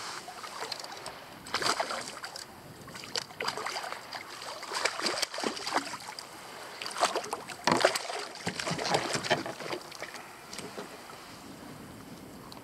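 Small hooked fish thrashing and splashing at the water's surface beside a kayak as it is brought in, in irregular splashes that are loudest about two-thirds of the way through and die away near the end.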